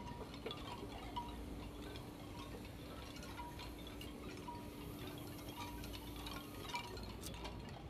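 Revolving coffee-roaster display drum turning, with coffee tumbling inside: a soft, tinkling, chime-like patter of many small clicks. A faint short tone recurs about once a second.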